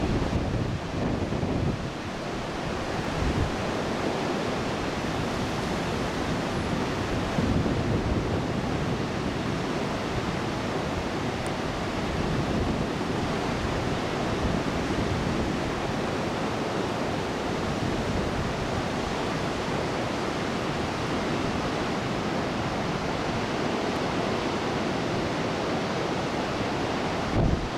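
Typhoon-driven heavy surf: a steady rush of breaking waves mixed with wind, with irregular low gusts buffeting the microphone.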